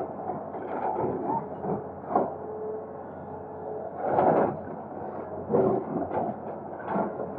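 Excavator running while it works, with irregular scraping and knocking swells every second or two over a steady engine hum.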